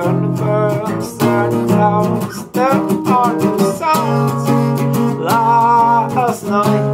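Acoustic guitar strummed in a steady rhythm, with a man singing over it in two phrases.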